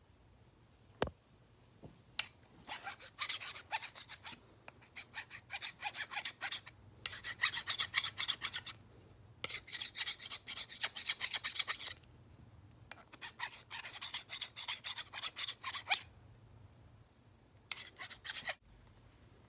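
Flat metal hand file rasping across an old throwing knife's steel blade in quick back-and-forth strokes, in several bursts with short pauses between. A single click about a second in.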